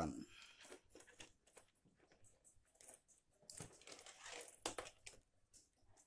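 Faint handling noise: scattered small clicks and crinkly rustling of multimeter test leads and motor wires being handled, a little busier about four seconds in.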